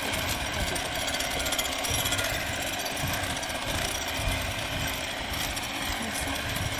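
Electric hand mixer running steadily, its beaters whisking egg whites with a pinch of salt, beating them stiff for meringue.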